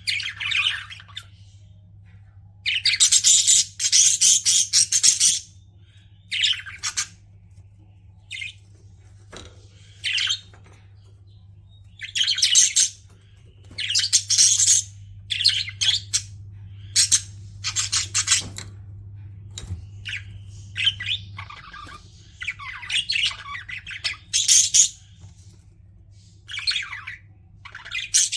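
Pet budgerigars chirping and chattering in irregular bursts of high calls with short pauses between them, the longest bursts lasting a second or two.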